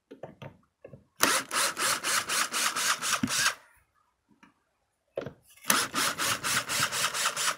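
Cordless drill backing a screw out of the wooden rocker beam, in two runs of rapid rhythmic rasping, about five pulses a second, with a few short clicks just before.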